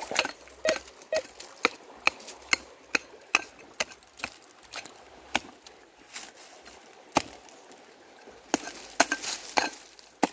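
A short-handled metal hoe chopping repeatedly into dry sandy soil, about two strikes a second, to dig out a metal detector target. The strikes thin out about three-quarters of the way through, then pick up again with scraping near the end.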